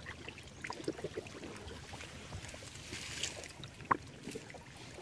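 Faint sloshing of shallow swamp water and scattered crackling of dry reed stems as a person wades through, with one sharper click about four seconds in.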